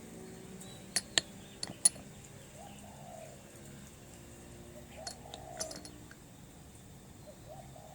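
A few small sharp taps and clinks, four in quick succession between one and two seconds in and a few more around five seconds in, with a dove cooing faintly in the background.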